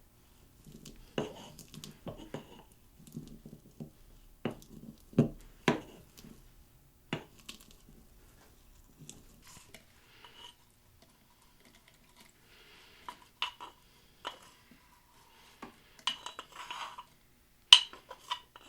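Utensil knocking and clinking against a mug as fresh mint leaves are bruised for tea. The knocks are irregular and duller in the first half. Sharper, brighter clinks come near the end, with one loudest clink.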